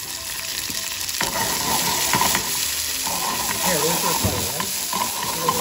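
Halved cherry tomatoes sizzling in hot oil in a small nonstick frying pan with garlic, chili and mint, a steady hiss, with one sharp knock about a second in.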